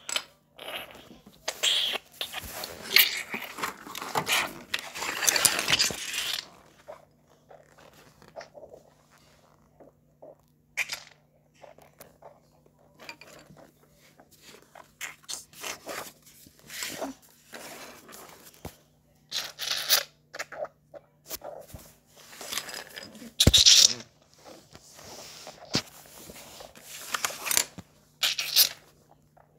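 Paper rustling and scraping in irregular bursts as a spiral sketchbook's pages are handled, with a sharp knock about two-thirds of the way through.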